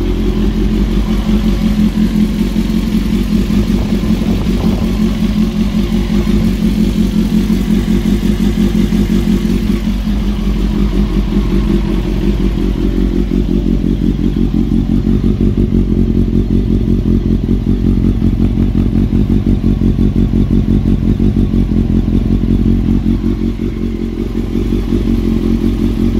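Honda CBR954RR's 954 cc inline-four engine idling steadily through an aftermarket carbon-fibre end can, with a mechanical clatter: the engine noise that a new cam chain is meant to cure, typical of a worn cam chain.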